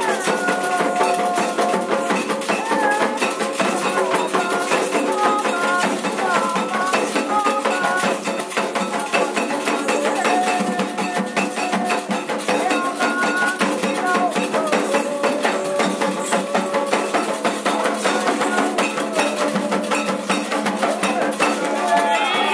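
Candomblé ritual music: atabaque hand drums and a struck metal bell (agogô) keep up a continuous rhythm under women's voices singing a chant together.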